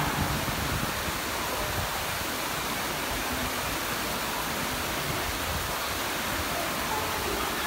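Steady rush of flowing water from a stream or small waterfall, an even hiss that holds level throughout.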